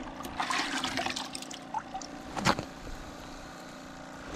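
Short splashes and dribbling of water as a hand reaches into a minnow bucket for live bait, with a sharp click about two and a half seconds in.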